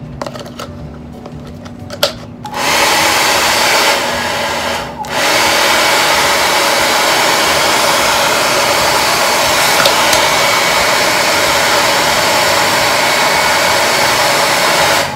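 JML handheld hair dryer switched on about two and a half seconds in, its motor winding up into a loud, steady rush of air blown into a cut plastic water bottle. It dips briefly around five seconds in, comes back up, and cuts off at the very end.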